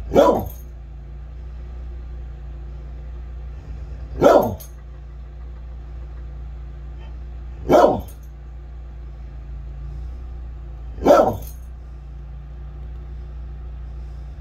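A dog barks four times, single barks about three and a half seconds apart, over the steady running of a Toro compact utility loader's engine.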